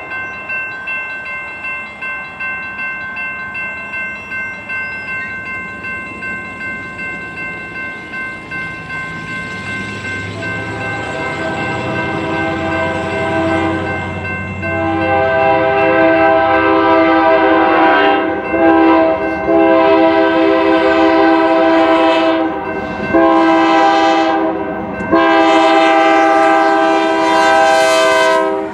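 A railroad crossing bell rings in a steady pulse. Then a Union Pacific diesel locomotive's multi-chime air horn sounds the grade-crossing signal, long, long, short, long, growing louder as the autorack train approaches and reaches the crossing.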